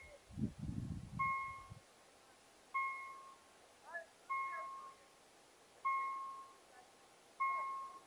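Level-crossing warning bell ringing: an electronic ding of a single pitch, struck evenly about every second and a half, each strike fading quickly. A low rumbling noise sounds for about a second and a half near the start, and faint bird chirps come in between the dings.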